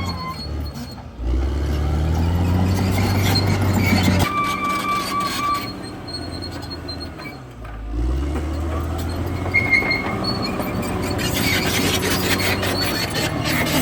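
Diesel engine of a CAT D6R XL crawler bulldozer working, dragging down and picking back up twice, with short high squeals and rapid clanking from its steel tracks.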